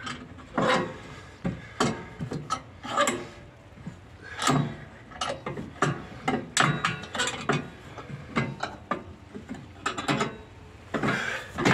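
Steel G-clamp being unscrewed by hand on a steel-channel bending jig: a run of irregular metallic clicks and rasps as the screw turns.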